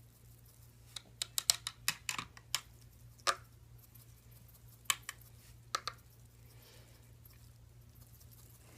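Glitter being shaken and tapped out of its container: a quick run of sharp taps and clicks about a second in, then a few scattered taps.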